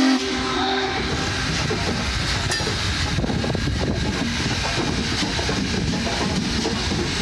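Union Pacific Big Boy No. 4014, a 4-8-8-4 articulated steam locomotive, passing close by: a chord-like blast of its whistle cuts off about a second in, then the steady rumble and clatter of its running gear and wheels on the rails.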